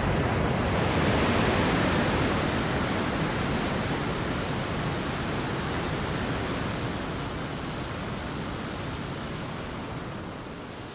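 Steady rushing electronic noise wash at the end of the song, with no beat or tune, slowly fading out as its top end gradually dulls.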